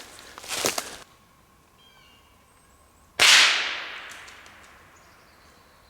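A single rimfire rifle shot about three seconds in, a sharp crack that echoes and dies away over a couple of seconds. There is a short rustle in the first second.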